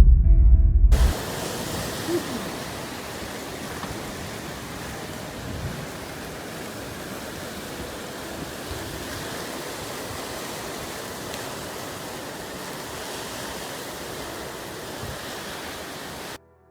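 Heavy storm rain pouring down, a steady even rush of noise. It follows loud music that cuts off about a second in.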